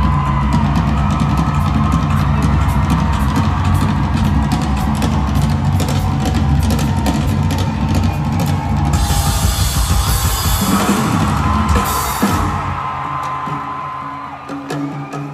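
Rock drum kit played live as a solo: fast, dense bass drum and snare hits, with a long cymbal wash from about nine to twelve seconds in. After that the bass drum drops out and the playing turns quieter and sparser.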